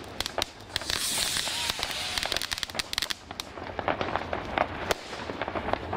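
New Year's Eve fireworks and firecrackers going off in quick, irregular succession, near and far, in a dense run of sharp cracks and pops. A hissing rush comes in about a second in.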